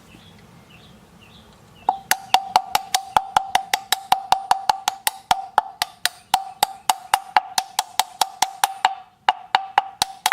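An aluminum hub-centric ring being tapped into a wheel's center bore with a tool: sharp metallic taps at about four a second, each leaving a clear ringing tone, beginning about two seconds in with a brief pause near the end.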